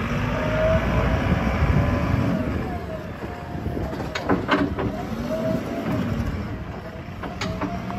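JCB 3DX backhoe loader's diesel engine running as the machine drives and turns, louder in the first couple of seconds. A few sharp knocks come about four seconds in and again near the end.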